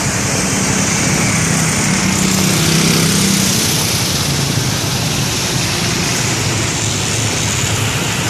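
A bus engine runs close by amid a steady roar of road traffic. Its low hum is strongest in the first three or four seconds, then settles into the general traffic noise.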